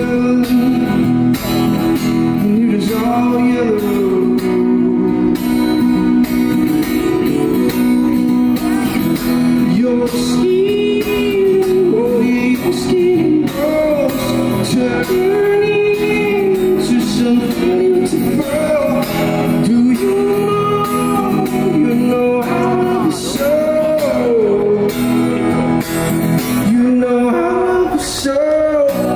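Man singing a melody of long held notes while strumming an acoustic guitar, his voice carried through a microphone.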